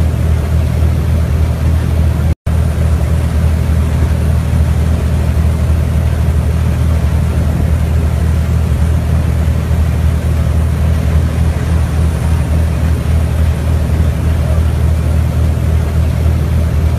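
Express passenger boat's engines running steadily at speed, a loud, even low drone over the rushing hiss of the churned wake and spray. The sound drops out completely for a split second about two seconds in.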